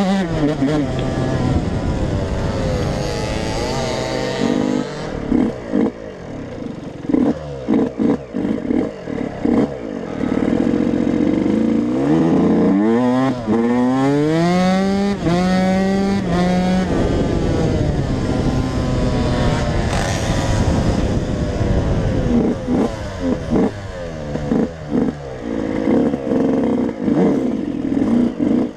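Yamaha YZ125 two-stroke dirt bike engine being ridden hard. The rider blips the throttle on and off in short bursts, then pulls up through the gears about twelve to seventeen seconds in, the pitch climbing and dropping back at each shift. Near the end it goes back to choppy throttle blips.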